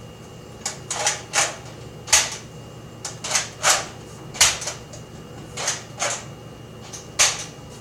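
A string of about ten short, sharp hissing clicks at uneven intervals: a spring-powered Nerf blaster firing repeatedly.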